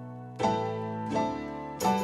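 Instrumental background music: a slow melody of ringing notes, three struck in turn about two-thirds of a second apart.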